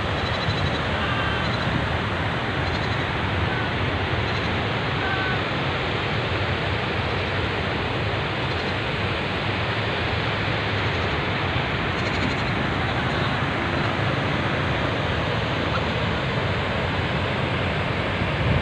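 Steady rushing of water pouring through a dam's open spillway gates and churning in the river below.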